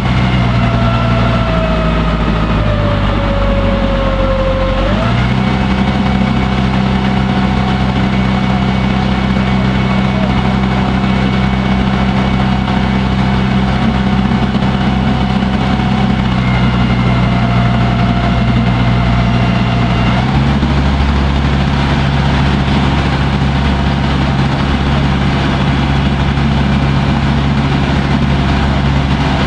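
Water taxi's engine running steadily, heard on board. Its pitch sags slightly, then steps up about five seconds in, and shifts again about twenty seconds in as the engine speed changes.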